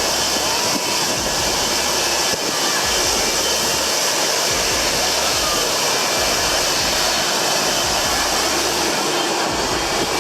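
Jet engine blast: a loud, steady rush of a jet's exhaust blowing over the fence, with wind buffeting the microphone.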